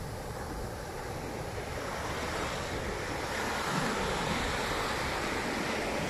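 Small surf breaking and washing up the beach, growing louder about two seconds in as a wave comes in.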